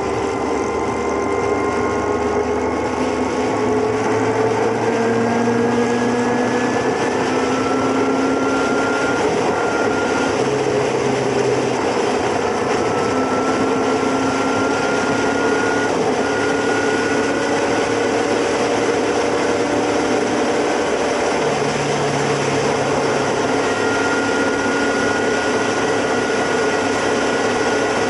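Motorcycle engine running at highway speed under a steady rush of wind and road noise; the engine's pitch climbs slowly a few times as the bike picks up speed.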